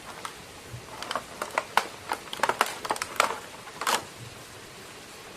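Toy packaging being handled and opened: a quick, irregular run of plastic clicks and crinkles lasting about three seconds.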